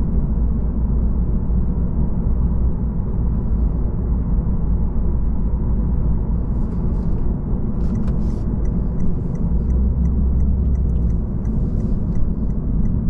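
Steady low rumble inside the cabin of a 2022 Lexus RC350 F Sport driving slowly: road and tyre noise with the engine running lightly under it.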